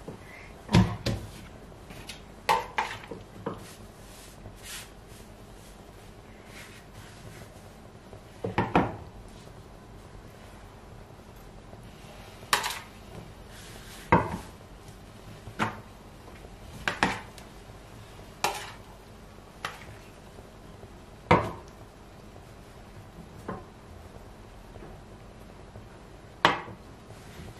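Irregular clinks and knocks, one every second or two and sometimes in quick pairs, of a spoon against a ceramic mixing bowl as spinach filling is scooped out and spread on dough on a stone counter.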